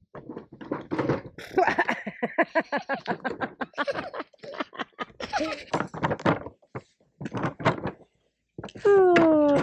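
A young child laughing and giggling in quick bursts, then a loud exclamation with falling pitch near the end.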